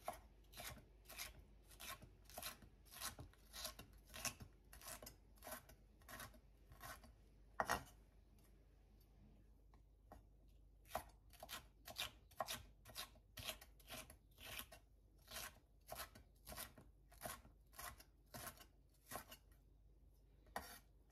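Chef's knife slicing green bell pepper into thin strips on an end-grain wooden cutting board: crisp even cuts about two a second, one louder knock about eight seconds in, a pause of two or three seconds, then another run of cuts.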